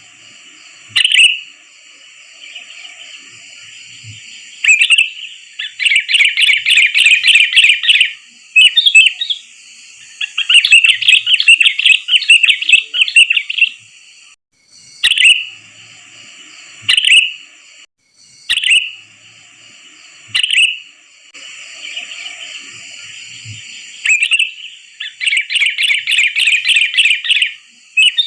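Sooty-headed bulbuls (kutilang) calling: loud, short calls every few seconds, broken by three stretches of rapid chattering that each last a few seconds, over a faint steady background chatter of more birds. This is a lure recording for attracting the species.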